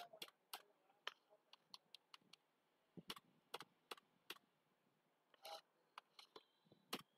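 Faint computer keyboard keystrokes: single key clicks at an irregular pace, with short pauses between them.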